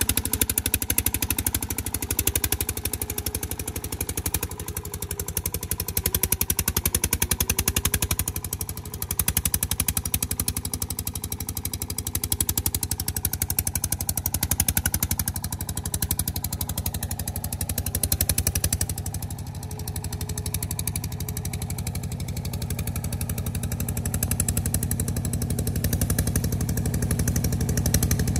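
Công nông farm truck's single-cylinder diesel engine chugging under load while climbing a slope, its loudness rising and falling every few seconds.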